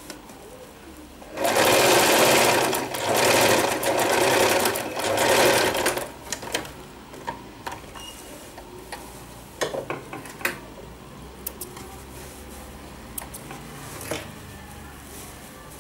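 Electric domestic sewing machine stitching a seam along a zip, running in three short stretches from about a second and a half in until about six seconds in. After it stops, only scattered light clicks are left.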